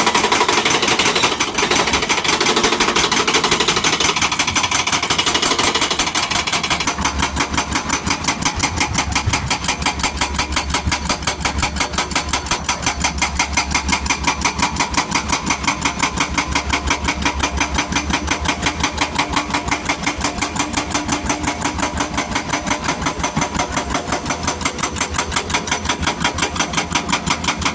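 Hyundai excavator working with a fast, even pounding of about five beats a second. About seven seconds in, the sound grows deeper with a low hum.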